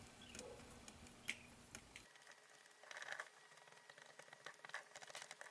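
Near silence: room tone with a few faint, scattered clicks and ticks.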